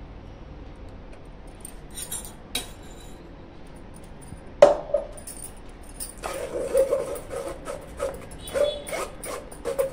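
A spoon scraping and pressing thick raw-mango paste through a stainless-steel mesh strainer, in quick scratchy strokes that begin about six seconds in. A sharp knock comes a little before halfway.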